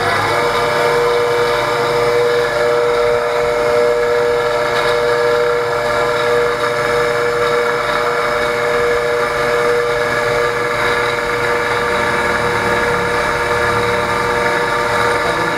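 Electric motor of a fused clapton coil-winding machine running at a steady speed, its chuck spinning to wrap fine 38 AWG wire. It gives a steady whine, having just spun up to speed.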